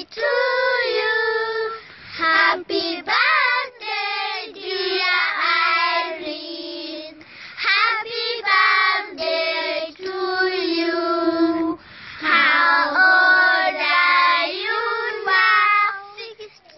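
A group of children singing together, phrase after phrase of held notes, with short breaks between phrases.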